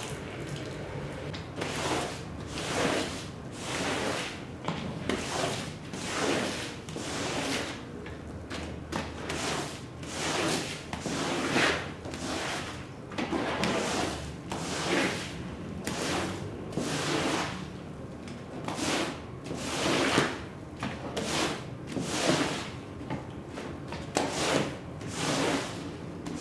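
Wet rug being worked over by hand with a cleaning tool: a long run of separate sliding, scraping strokes, roughly one a second and somewhat uneven.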